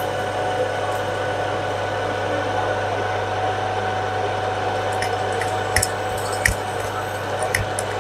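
Metal lathe running steadily while facing off the end of a large round metal bar: a constant motor hum with the hiss of the cut. From about five seconds in come scattered sharp clicks and three louder knocks.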